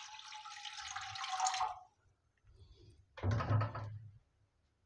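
Water poured in a stream into an empty nonstick kadai (wok), splashing steadily and stopping a little under two seconds in. About a second later comes a brief clunk.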